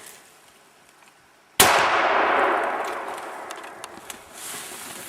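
A single hunting rifle shot about one and a half seconds in, a sharp crack followed by a long fading echo: a follow-up shot at a bull moose.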